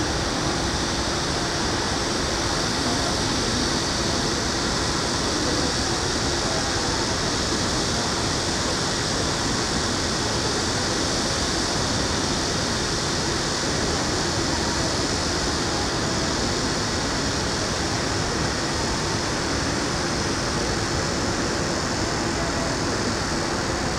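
Steady city ambience: an even, continuous wash of traffic and urban noise, with no single sound standing out.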